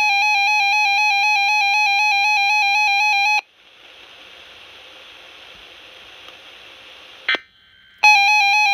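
RadioShack 12-521 weather alert radio sounding its alert tone for a hazard warning: a loud electronic beep that warbles rapidly up and down. It stops about three and a half seconds in, gives way to a steady hiss that ends in a click, and the warbling alert tone starts again near the end.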